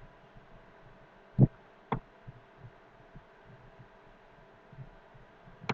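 Two sharp clicks about half a second apart, with a few fainter ticks, over a faint steady electrical hum: computer mouse clicks while wiring a circuit in simulation software.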